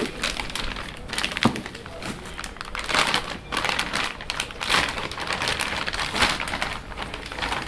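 Clear plastic bag crinkling and rustling in short, irregular bursts as a coilover strut is worked out of it by hand, with a sharp knock about a second and a half in.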